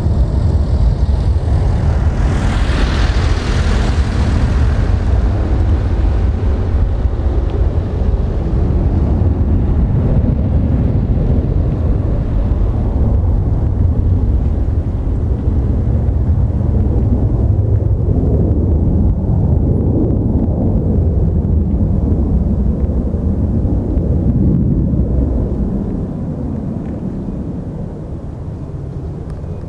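Jet engines of a departing Boeing 737-800 rumbling as it climbs away, a deep, steady roar that fades off about 26 seconds in. A brief hiss rises and falls about two to four seconds in.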